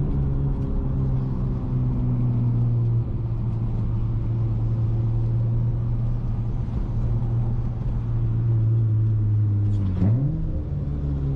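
Honda J32A3 3.2-litre V6 with a Skunk2 MegaPower single-exit exhaust, driving along in gear with a steady drone whose pitch sinks slowly as the revs fall. About ten seconds in, the pitch dips and then climbs quickly.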